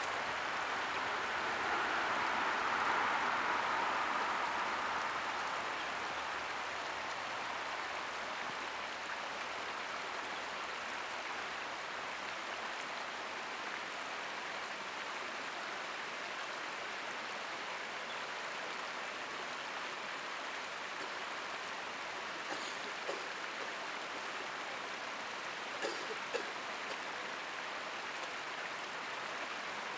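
Creek water running in a steady rush, a little louder in the first few seconds, with a few faint clicks between about 22 and 27 seconds in.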